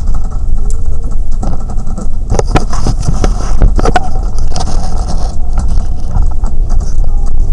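Bus engine and road rumble heard from inside the cabin. About two to four seconds in, a burst of scraping and rustling comes from the camera being handled against clothing.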